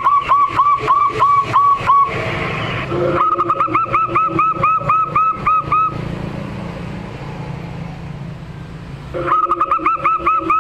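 Zebra dove (perkutut) singing: bouts of quick repeated cooing notes, about four or five a second, three bouts with pauses between, over a steady low hum.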